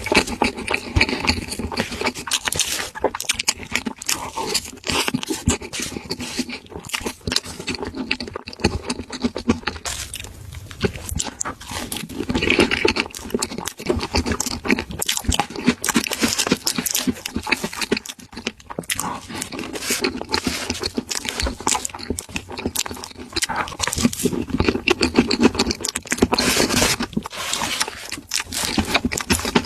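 Close-up eating sounds: a dense, continuous run of quick crunching chews and wet smacks.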